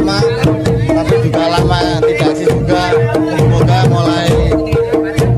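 Javanese Bantengan music from a live ensemble: drums beating under steadily repeated pitched-percussion notes and a wavering melody line above them.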